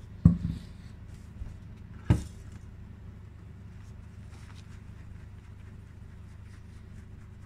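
Two sharp knocks on a wooden workbench about two seconds apart, the first as a plastic bottle of finishing compound is set down, then faint cloth-on-metal rubbing as a metal cigarette case is hand-polished, over a steady low hum.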